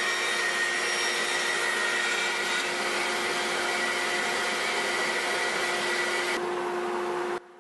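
Delta 14-inch band saw running while a board is ripped along the fence: a steady mechanical noise with a constant hum. The sound cuts off abruptly a little before the end.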